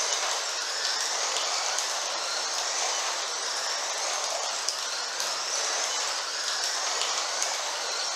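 Several Carrera Digital 1/24-scale slot cars lapping a plastic track: a steady whir and rattle of their small electric motors and guides running in the slots, with the motor whine rising and falling and a few light clicks.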